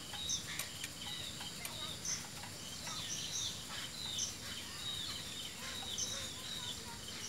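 Small birds chirping over and over, short high calls, with a few faint clicks in the first couple of seconds from a spanner working on the injector clamp bolts of the stopped diesel engine.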